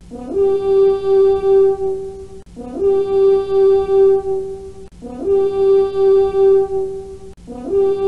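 A brass-like horn sound effect: a short low note that jumps up to one long held note with a wavering loudness, repeated about every two and a half seconds, four times.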